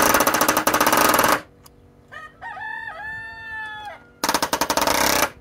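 Ridgid pneumatic palm nailer hammering 8-penny sinker nails into pallet-wood boards in rapid bursts. The first burst stops about a second and a half in, and a second, shorter burst starts near the end. Between them a rooster crows once, over a faint steady hum from an air compressor in the distance.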